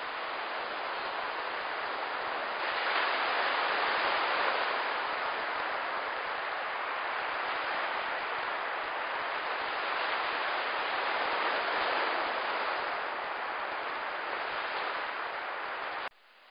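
Steady hiss of surf washing onto a sandy beach, with no distinct breaks. It steps up a little about two and a half seconds in and cuts off abruptly near the end.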